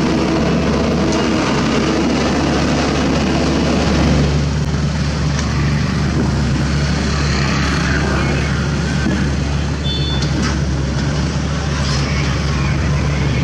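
Sany SY75 mini excavator's diesel engine running steadily while it digs and loads, with a deep, even hum.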